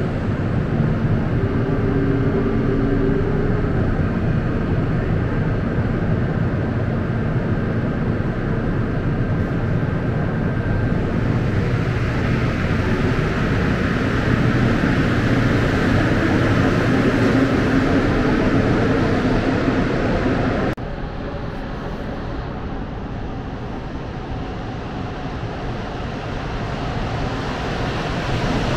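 Mexico City Metro Line 9 train, a rubber-tyred train, running at a station platform: a steady rumble with a few held tones that grows louder. About two-thirds of the way in the sound cuts off abruptly to a quieter rumble, which swells again near the end as another train approaches.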